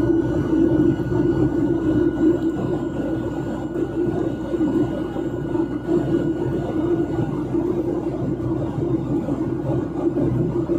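Steady cabin noise of a Boeing 737-900ER in flight, heard from a window seat beside the engine: an even drone of the CFM56-7B turbofans and airflow, with a thin steady whine above it.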